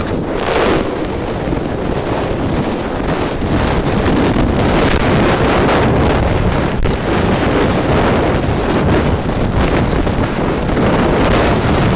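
Storm-force wind blasting across the microphone in a loud, steady rush, with waves and spray slapping the hull of a D-class inflatable lifeboat under way.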